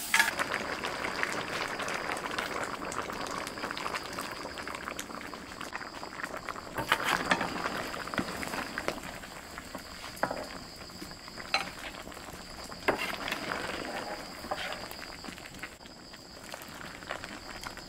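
Mud crab curry bubbling and simmering in a wok, a steady crackling hiss, with a few sharp clicks of a ladle against the pan.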